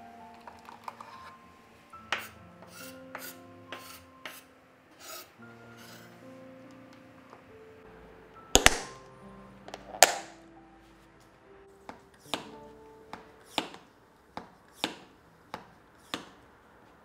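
Plastic food container being handled: grated cheese drops in with light rustles and taps, then two loud sharp snaps about halfway as the clip-lock lid is shut. In the last third a hand vacuum pump on the lid valve clicks about eight times, a little more than half a second apart, over soft background music.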